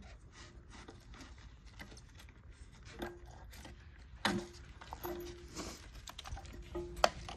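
Small plastic clicks, taps and rattles of an old toilet flapper being worked off the overflow-tube pegs inside an emptied tank, with a sharper knock about four seconds in and another near the end.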